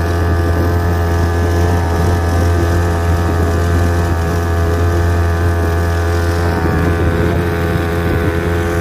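Outboard motor running steadily at speed, pushing an inflatable boat across the water, with a constant low hum.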